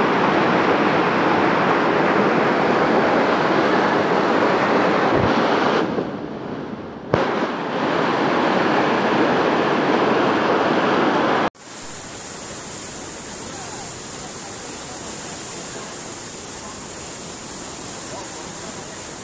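Floodwater rushing in a fast torrent, a loud, steady roar of churning water. About eleven seconds in it cuts off abruptly to a quieter, steady rush of water.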